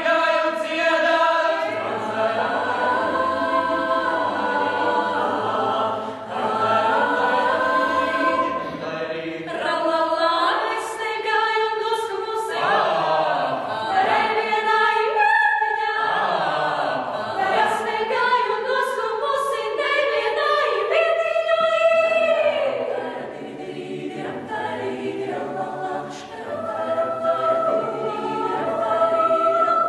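Mixed youth vocal ensemble singing a cappella in several parts, the low voices holding bass notes under the upper voices. The singing grows softer for a few seconds about three-quarters of the way through, then swells again.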